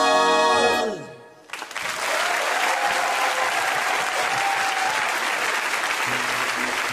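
A swing band's final held brass chord, its pitch dropping in a fall-off that cuts off about a second in. After a brief gap, an audience breaks into steady applause.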